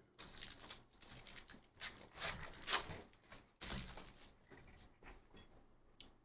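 Foil wrapper of a football trading-card pack being torn open and crinkled: a run of rustling rips over the first three seconds, a sharper rip a little later, then soft handling as the cards come out.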